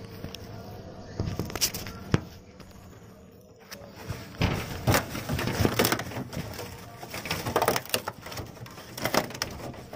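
Dry leaf litter crackling and rustling, with scrapes and knocks against wood and glass, as hands grab a trapped kingfisher from its nest debris. A few scattered crackles give way to denser handling noise from about four seconds in.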